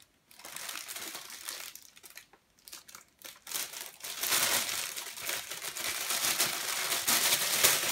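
Clear plastic bag crinkling and rustling as a plastic tray is unwrapped from it, patchy at first and louder and steadier from about halfway through.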